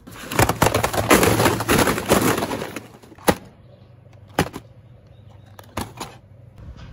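Cardboard packaging crackling and rustling for the first three seconds or so, then four sharp separate clicks or taps, the last two close together.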